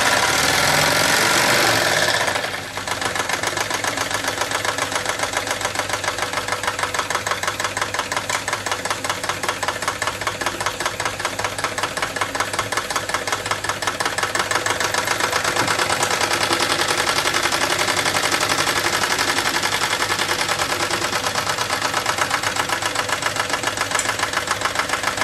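Wilesco D22 model steam engine starting with a loud rush of steam for about two seconds, then settling into a fast, even chuffing beat as it idles.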